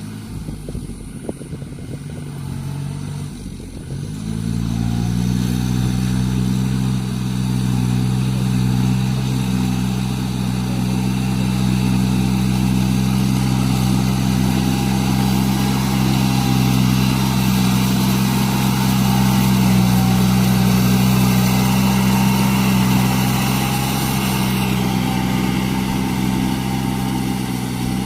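Iseki NT540 tractor's diesel engine running steadily; about four seconds in it picks up and grows louder, then holds an even speed.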